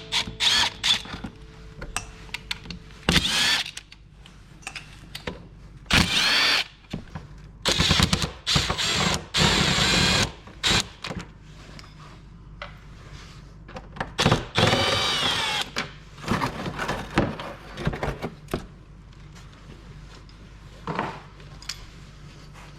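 Power drill run in short bursts to back out bolts on a Can-Am's CVT cover, its motor whine rising and falling with each trigger pull, with knocks and clicks between bursts.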